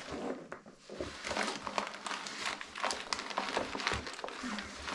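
Rustling and crinkling of a plastic hydration bladder and backpack fabric as the full bladder is pushed and squeezed into the pack, a run of irregular short crackles.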